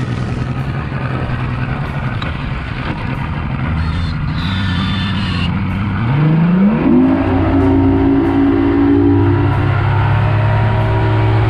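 Bass boat outboard motor running at low speed over a steady rushing noise, then throttling up about six seconds in, its pitch rising and holding higher.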